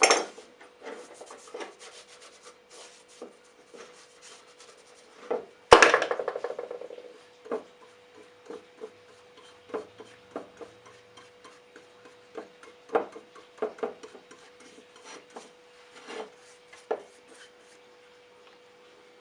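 Irregular hand rubbing and scraping strokes during restoration work on the old secateurs, with one loud metallic clank about six seconds in that rings on briefly. A faint steady hum sits under it all.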